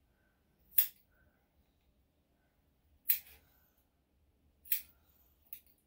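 Four crisp snips of a small grooming tool cutting at a dog's front paw, spaced a second or two apart, the last one fainter.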